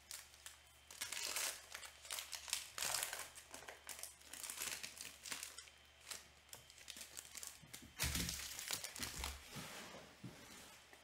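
Trading card pack wrappers being torn open and crinkled by hand, in a string of short, irregular rustles. A louder burst of rustling comes about eight seconds in.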